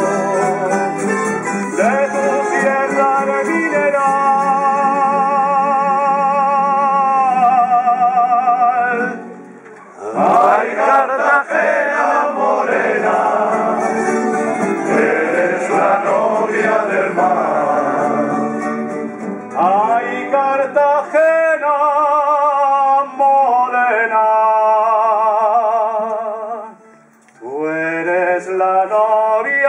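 A tuna, a Spanish male minstrel chorus, singing long held notes with vibrato over strummed guitars and bandurrias. The music drops briefly about nine seconds in and again near the end.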